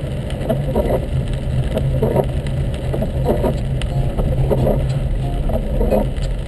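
Car interior sound while driving through heavy rain: a steady low engine and road drone under a hiss of rain on the car, with the windscreen wipers sweeping.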